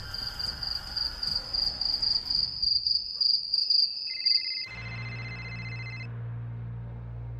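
Crickets chirping in a rapid, pulsing high trill. About four and a half seconds in they cut off abruptly, giving way to a steady low hum with a few high ringing tones that stop about a second later.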